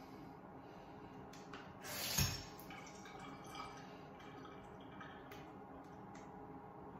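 Dental floss working between teeth in small scattered clicks, with one louder short wet splash-like sound about two seconds in, over a faint steady room hum.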